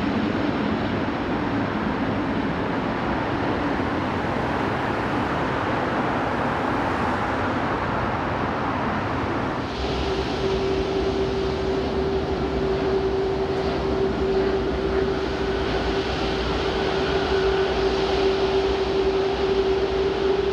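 Jet aircraft engines running with a steady rush as a Boeing 777 freighter passes close by. About halfway through, the sound cuts abruptly to a steady low rumble with a constant mid-pitched whine from the apron, where de-icing trucks are working beside parked airliners.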